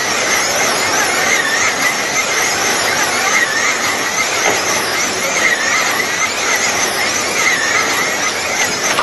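A field of wing slot cars racing flat out on a multi-lane track: their small electric motors whine, high-pitched and steady, the pitch wavering up and down as the cars lap.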